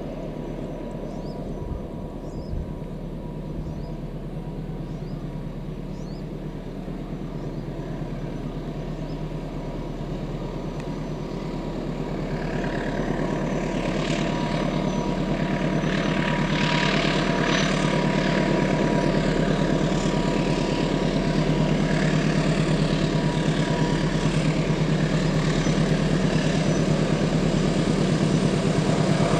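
Diesel locomotive hauling loaded fuel tank wagons, its engine's steady drone slowly growing louder as the train approaches. A hiss builds in over the second half.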